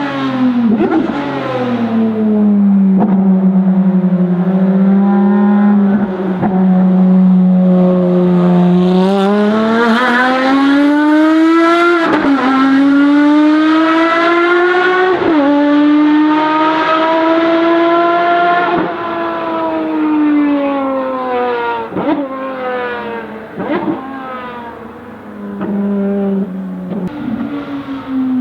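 Ferrari FXX Evoluzione's V12 racing engine at speed: the engine note holds steady, then climbs hard, with sharp drops in pitch at upshifts about twelve and fifteen seconds in. After that it falls away, with a run of sharp cracks near the end.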